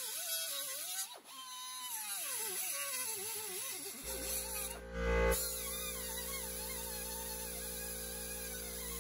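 Small handheld grinder with a cut-off wheel cutting through steel threaded rods, its whine sagging and rising as the wheel bites, with a brief break about a second in. About four seconds in, steady background music comes in.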